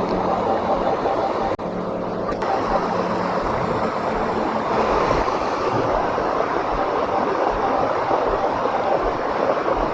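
Steady rushing of a waterfall, with a faint steady hum under it for the first few seconds.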